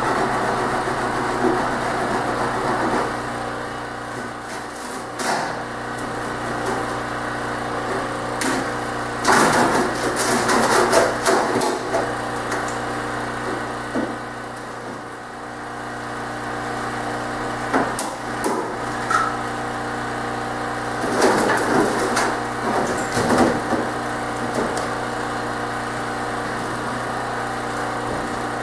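A steady machine hum runs throughout, with bouts of knocking and clattering from hand work on the airframe, in two busier clusters about a third of the way in and again past the middle.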